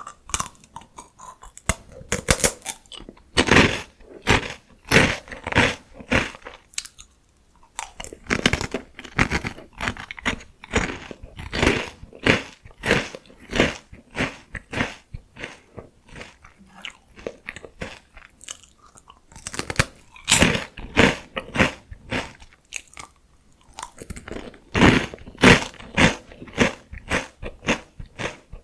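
Close-miked crunching and chewing of dry, salty potato stick snacks: rapid sharp crackles in bursts, each bite followed by a run of chewing, with short pauses between mouthfuls.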